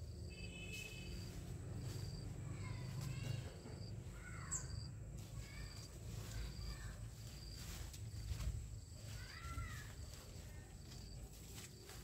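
Outdoor garden ambience. An insect repeats a short high chirp at a steady pace, a little faster than once a second, while birds give a few short rising-and-falling calls. There is also soft rustling of footsteps through leafy ground cover.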